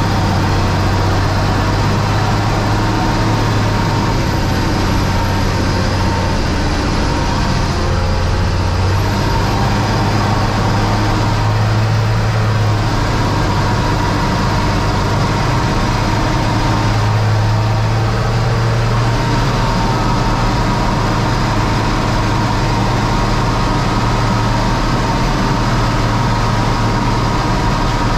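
Fendt 926 Vario tractor's 6.9-litre six-cylinder diesel engine running steadily, heard from inside the cab, with a constant thin whine over the low drone.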